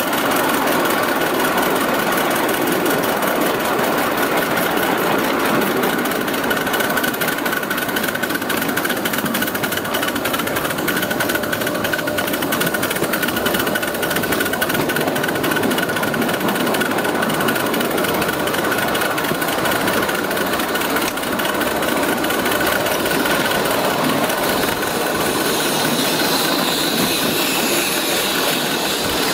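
5-inch gauge live steam locomotive, a Metre Maid 0-6-2 version of the Sweet Pea design, running along the track with a rapid, steady exhaust beat and clatter of its wheels and motion.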